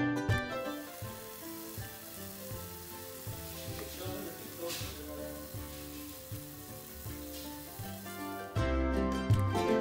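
Gulab jamun dough balls deep-frying in oil in a saucepan: a steady sizzle of bubbling oil. Quiet instrumental music plays under it and comes back louder near the end.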